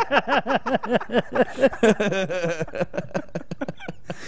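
Men laughing hard together, a quick run of ha-ha pulses that thins out over the last second or so.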